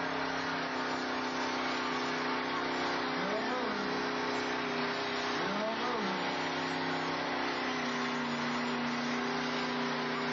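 Pickup truck engine running at a steady, held pitch in a mud pit, over a constant hiss of noise; twice, about three and six seconds in, a short sound rises and falls in pitch above it.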